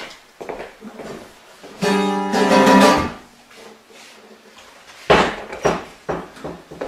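Acoustic guitar strings ringing out in one chord about two seconds in, fading after about a second, as the guitar is handled; a few short knocks follow near the end.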